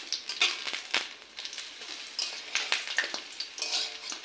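Masoor dal fritters frying in oil in a steel kadai, a steady crackling sizzle. A spatula knocks and scrapes against the pan as the fritters are turned, with one sharp knock about a second in.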